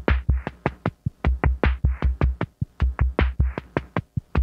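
Background music: a bare electronic drum beat of deep kick-drum thuds and snare-like hits in a steady repeating pattern, with no melody yet.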